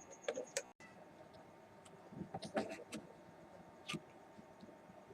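A few faint, scattered clicks and taps of small objects being handled.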